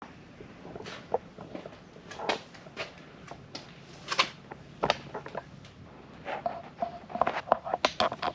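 Scattered clicks, taps and knocks of tools and parts being handled during hand work, irregular and coming thicker near the end, with a short faint squeak a little past the middle.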